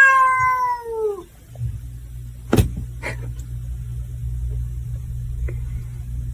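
A cat's long meow, falling in pitch at the end. It is followed by a steady low rumble with a sharp knock about two and a half seconds in.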